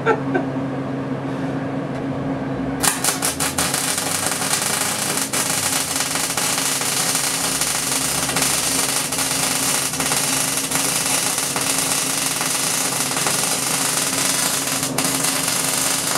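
MIG welding arc crackling steadily as a bead is laid, starting about three seconds in and running on for about thirteen seconds.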